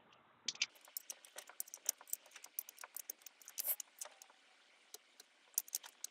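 Socket ratchet clicking in short, irregular strokes while a half-inch nut is worked loose, with light metallic taps from the tool and hardware.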